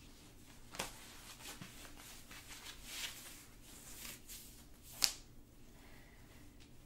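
Faint rustling and handling of fabric and straps as a strappy one-piece lingerie bodysuit is put on, with a few soft swishes and one sharp click about five seconds in, the loudest sound.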